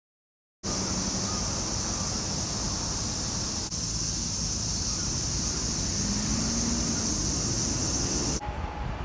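A steady, shrill summer cicada chorus with a low rumble of road traffic underneath, starting after a moment of silence and cutting off abruptly shortly before the end.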